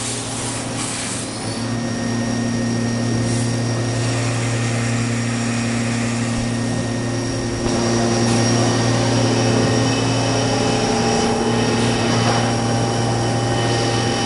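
Mazak VTC-16A vertical machining center running: a steady mechanical hum with several held tones over a hiss, stepping up in loudness about eight seconds in.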